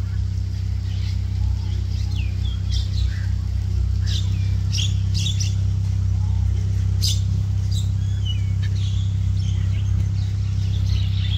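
Many birds calling in scattered short chirps and squawks, thickest in the middle, over a loud steady low hum.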